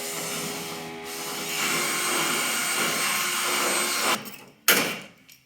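A power tool runs with a steady whir for about two and a half seconds, then stops abruptly. A sharp knock follows shortly after.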